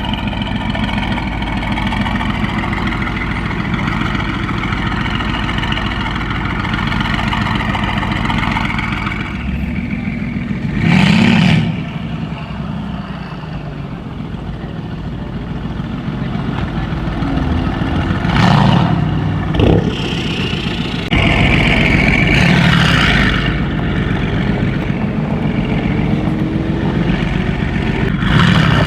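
Tuned, straight-piped Mercedes-AMG GT S twin-turbo V8 running steadily at low revs, then revved hard in short bursts: once about a third of the way in, again past the middle with a sharp exhaust crack just after, a louder stretch soon after, and a last short rev near the end.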